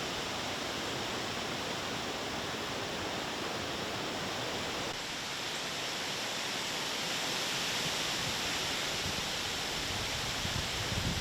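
Steady rush of wind and small waves at a breezy lakeshore, an even hiss without any distinct calls. Near the end, gusts of wind buffet the microphone with a low rumble.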